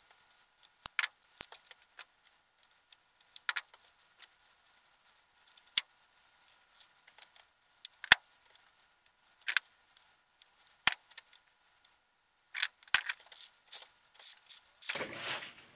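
Irregular light clinks, rattles and crackles of copper transformer windings and small scrap parts being pulled and handled by hand, with a few sharper ticks and a busier patch near the end.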